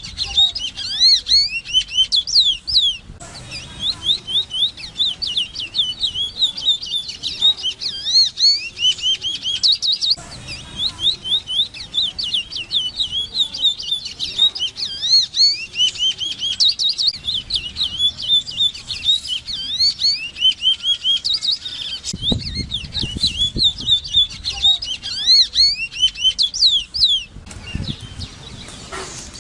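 Large-billed seed-finch (Sporophila crassirostris) singing: a long, fast run of sweeping, looping high notes, broken by a few short pauses.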